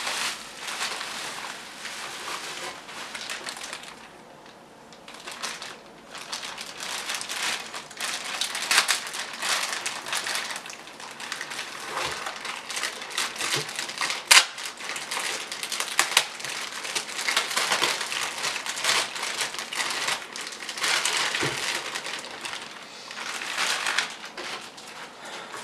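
Bubble wrap and plastic packaging being pulled and crumpled by hand, a steady crackling and crinkling with a brief lull about four seconds in and one sharp snap about halfway through.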